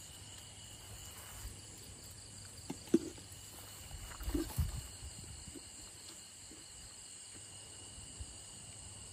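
Night insects, crickets, trilling steadily in the background, with one sharp knock about three seconds in and a few brief low sounds about a second later.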